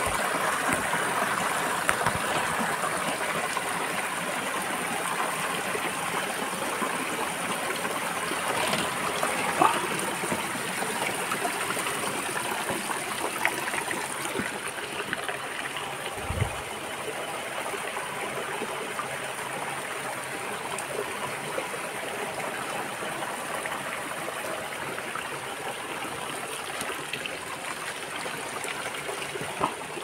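Water rushing and splashing steadily, with a few brief knocks over it.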